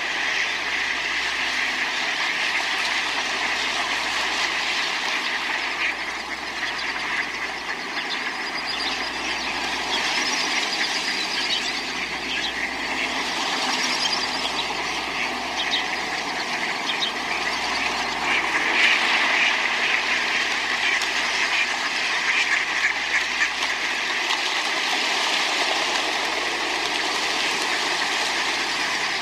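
Ducks quacking and splashing in water over a steady hiss, with busier splashing about two-thirds of the way through.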